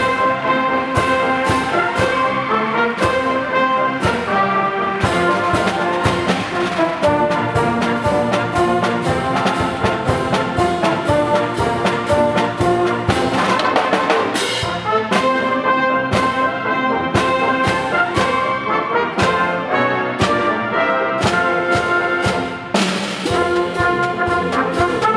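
Concert wind band playing live, trumpets and trombones carrying the tune over the ensemble, with percussion strokes marking a regular beat.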